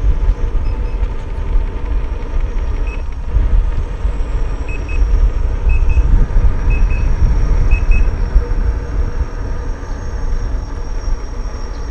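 Wind buffeting the camera microphone on a moving electric unicycle, a constant low rumble with a faint steady hum. A few faint double beeps come roughly once a second in the middle stretch.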